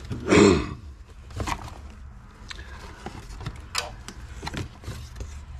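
Items being packed by hand into a cardboard box: paper packages rustling and a few sharp taps and knocks against the cardboard, with one short, louder burst of noise about half a second in.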